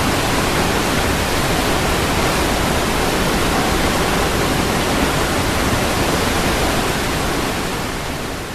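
Waterfall: a steady, full rush of falling water, fading down near the end.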